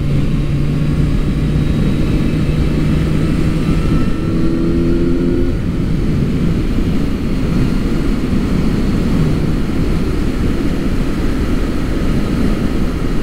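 Motorcycle engine running at road speed under heavy wind rush on the microphone, the engine note rising briefly about four seconds in.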